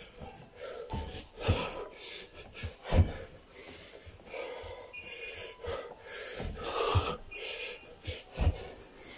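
A man breathing hard, with loud wheezing, gasping breaths, exhausted from doing burpees. A few dull thumps, the loudest about a second and a half and three seconds in, come from his body landing on the carpeted floor.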